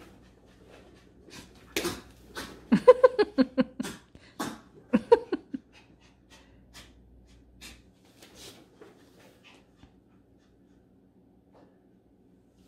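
Morkie puppy making a quick run of short, pitched yips and huffing breaths, several a second, for a few seconds starting about two seconds in, then going quiet.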